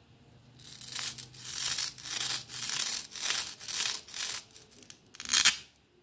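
Velcro joint of a plastic toy carrot rasping in a run of strokes, about two a second, then a louder short rip as the pieces pull apart a little after five seconds in.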